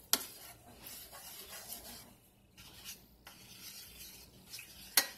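Black plastic spoon stirring and scraping pork pieces around a stainless steel sauté pan, with a sharp knock against the pan just after the start and another near the end.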